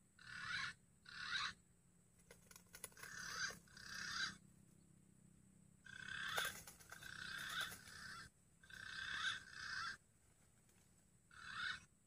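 Green pigeon (punai) calls: short notes, mostly in pairs, with one longer call near the middle.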